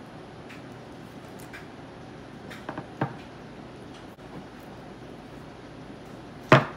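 Handling of an opened tuna can over a paper towel: a few small metallic clicks about three seconds in and one sharper, louder knock near the end, over steady room noise.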